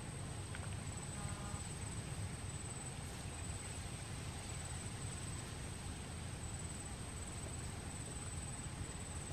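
Faint outdoor ambience: a steady high-pitched insect trill over a low, even rumble, with a few tiny ticks about a second in.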